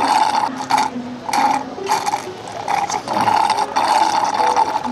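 Iced tea slurped through a straw from a plastic cup, a rattling gurgle of air and liquid in about six pulls, the longest near the end, as the cup is sucked nearly dry.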